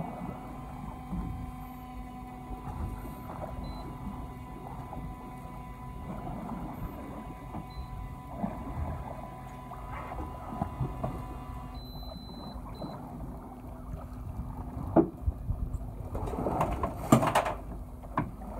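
Electric fishing reel's motor winding line in with a steady hum that stops abruptly about two-thirds of the way through, followed by a short high beep. Near the end come a few knocks and a louder rushing burst as the fish is brought to the boat's side.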